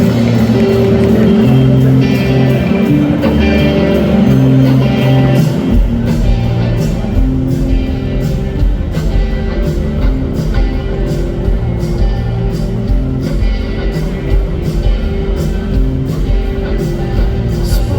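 Rock band playing live, an instrumental opening of held guitar chords. About six seconds in, heavy bass and drums come in with a steady beat.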